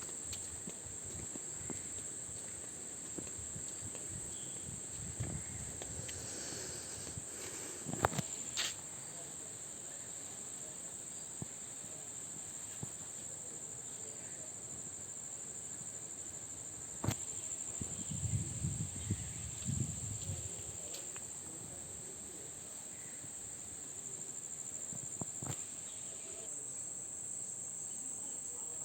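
Steady high-pitched chorus of insects, of the cricket kind, droning without a break. A few sharp clicks and a short run of low thumps about two-thirds of the way through sound over it.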